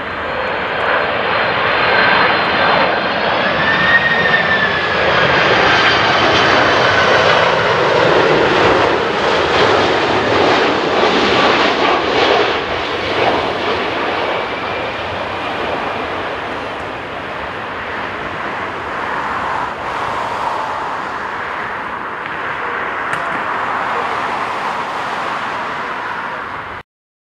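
Japan Airlines Boeing 767-300ER turbofan jet engines on final approach passing low overhead: a loud jet roar with a high fan whine that falls in pitch as the airliner goes by, loudest in the first half, then easing to a steadier, quieter roar as it moves off down the runway. The sound cuts off suddenly near the end.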